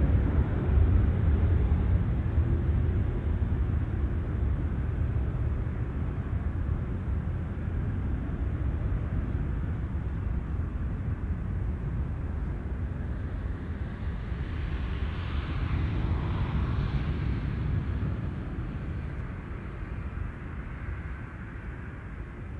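Jet airliner's engines at takeoff thrust: a deep, steady rumble that fades gradually as the aircraft rolls away down the runway and climbs out.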